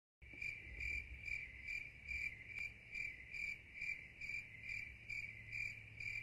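Crickets chirping in a steady, even rhythm of about two and a half chirps a second, over a low steady hum. The sound cuts in suddenly just after the start.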